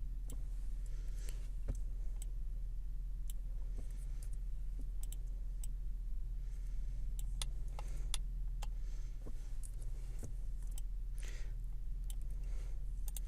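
Computer mouse and keyboard clicks, scattered irregularly, over a steady low electrical hum.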